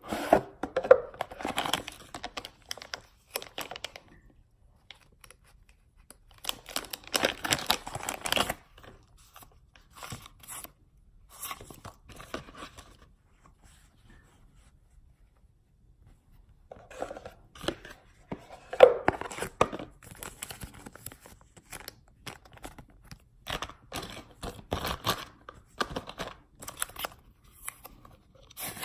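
Packaging being handled and opened: a cardboard gift box, paper wrappings and a cloth dust bag rustling, crinkling and tearing in irregular spells, with a quiet stretch around the middle.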